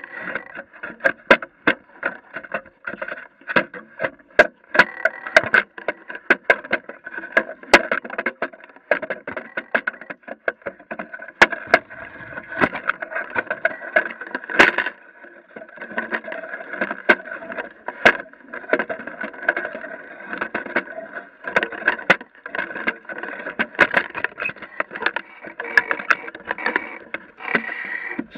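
Water lapping and slapping against the hull of a small sailboat under way, heard close from a camera mounted on the boat, with frequent sharp knocks and clicks.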